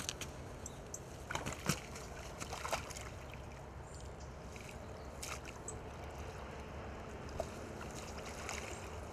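Water sloshing, with a few short splashes, as a hooked barbel thrashes at the surface and is drawn into a landing net, over a steady low rumble.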